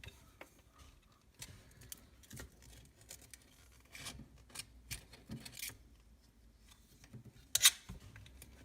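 Utility knife scraping and cutting at the old washer around a sink drain flange: a run of short, irregular scrapes and clicks, with one sharp, louder click near the end.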